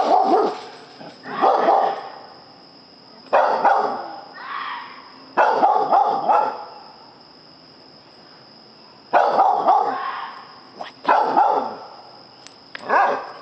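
A dog barking in repeated bouts, a few barks at a time, with pauses of one to three seconds between bouts. This is alert barking at an unseen noise in the yard. A thin, steady high-pitched tone runs underneath.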